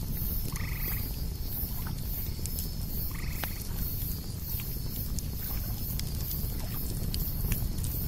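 Campfire crackling, with scattered sharp pops over a steady low rumble, mixed with high-pitched cicadas pulsing about twice a second. Two short animal calls sound about half a second and about three seconds in.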